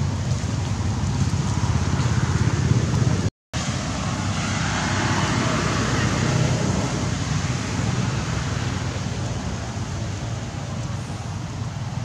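Steady outdoor background rumble with a hiss over it, cutting out for a split second about three and a half seconds in.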